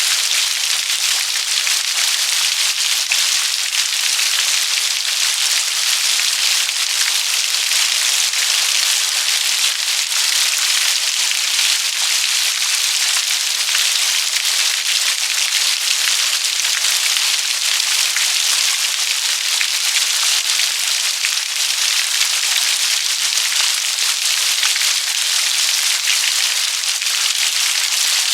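Steady rain: a dense, even hiss of countless small drop impacts, unchanging throughout.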